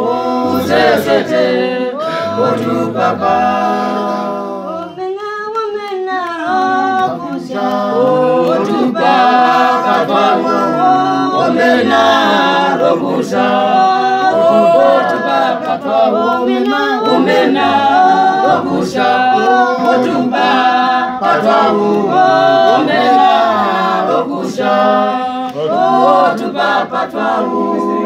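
Church choir singing a hymn a cappella, many voices together with no instruments.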